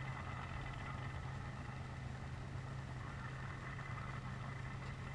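Steady low engine hum of vehicles idling out of sight, over an even bed of background noise.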